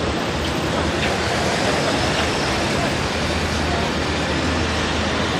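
Steady noise of road traffic passing, with faint voices of people in the background.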